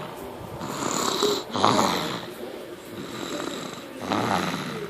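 A seven-month-old snoring in sleep: rough, rhythmic breaths, the loudest about a second and a half in and another near the end.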